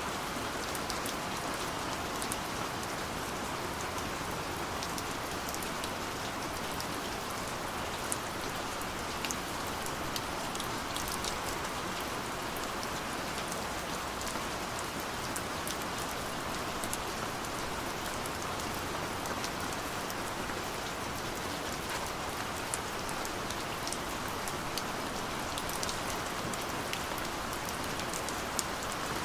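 Steady rain falling, a constant hiss of rainfall with scattered individual drops ticking on a surface.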